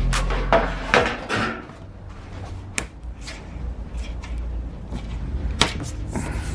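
Background music fading out over the first second or so, followed by sparse sharp clicks and knocks of parts being handled, over a low steady hum.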